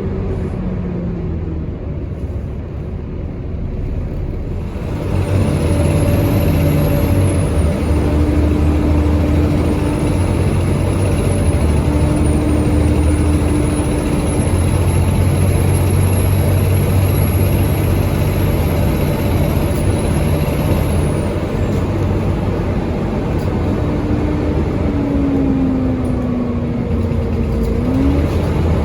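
Volvo B7TL bus's six-cylinder diesel working under load, its loud turbo whistle, known as the 'hoover' noise, rising and falling high above the engine for much of the run. The engine gets louder about five seconds in, and its note sags and then jumps back up near the end.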